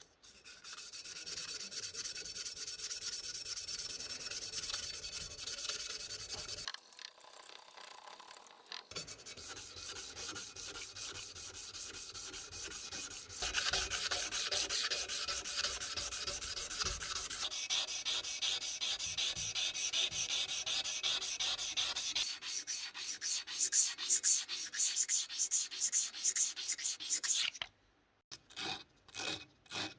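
Abrasive sanding during an axe restoration: quick, steady back-and-forth rubbing strokes. They ease off briefly about a quarter of the way in, then turn into slower, separate strokes near the end.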